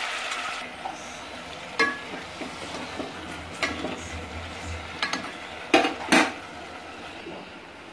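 Metal spoon stirring sliced brinjal and onion in a metal cooking pot, with several sharp knocks and scrapes of the spoon against the pot. The loudest two knocks come close together about three-quarters of the way through.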